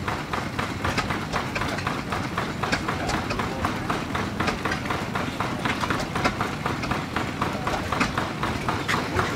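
Machinery running with a steady, rapid mechanical clatter, about five clicks a second.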